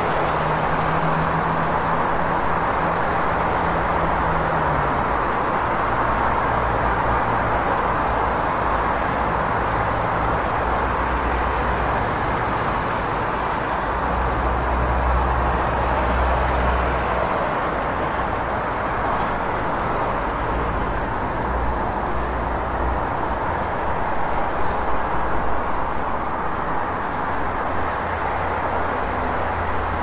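Steady city street traffic: a dense wash of vehicle noise with low engine drones that shift in pitch as vehicles idle and move.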